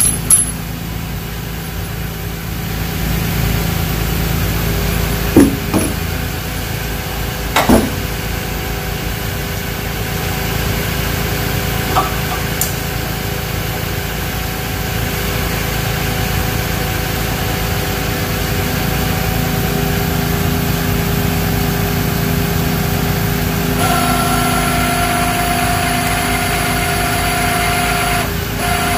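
Tow truck engine idling steadily, with a few sharp metallic clinks as chain hooks are handled. Near the end a winch-drive whine runs for about four seconds, then gives a couple of short blips as the winch is jogged to draw the cable tight.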